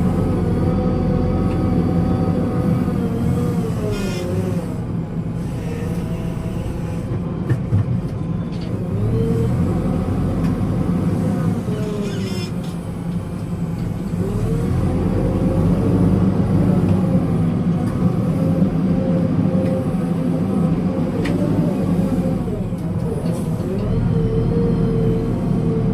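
Backhoe loader's diesel engine running, its pitch repeatedly rising and falling as the engine comes under load and eases off.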